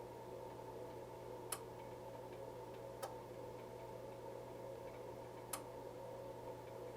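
Four short, sharp clicks at uneven intervals, a second and a half to two and a half seconds apart, over a steady low electrical hum.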